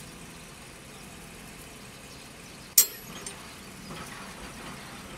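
A single sharp metallic clank a little under three seconds in, followed by a lighter tap, over a steady low engine hum.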